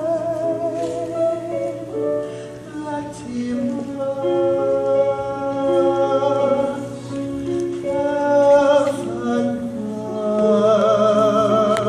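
Live musical theatre music: sustained notes, some wavering with vibrato, over a slowly moving accompaniment.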